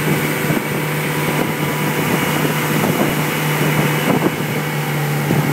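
Motorboat engine running at speed with a steady low drone, under wind rushing over the microphone, with a few brief knocks.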